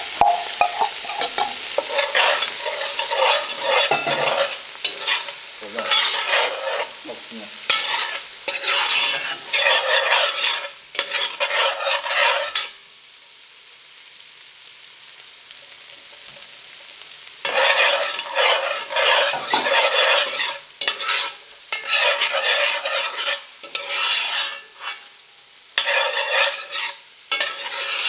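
Spoon stirring and scraping rice and lobster pieces around a pan as they fry in butter, in quick uneven strokes over a steady sizzle. About halfway through the stirring stops for some five seconds, leaving only the quieter sizzle, then starts again.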